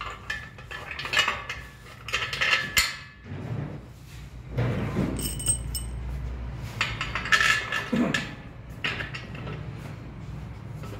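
Steel bolts and square steel tube frame parts clinking and clattering as they are handled, in several short bursts, one with a brief metallic ring about five seconds in.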